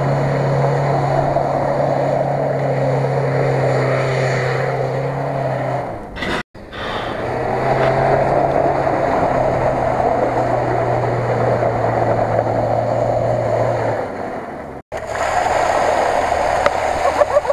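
A steady engine drone while an off-road SUV drives through mud and puddles, broken twice by sudden cuts. In the last two seconds, muddy water gushes out of the flooded cabin through the open door and splashes onto the grass.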